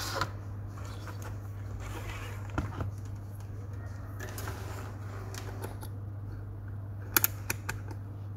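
Plastic clicks and taps from handling a digital multimeter and its test leads and probes on a desk: a few sharp clicks near the start, a couple more about two and a half seconds in, and the loudest cluster of three quick clicks near the end, over a steady low hum.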